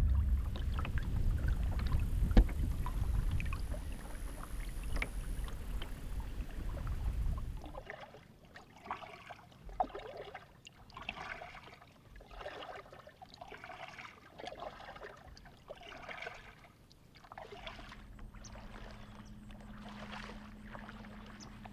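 Low rumble for the first several seconds, then regular splashing about once a second: waders sloshing step by step through shallow river water as a loaded kayak is dragged behind.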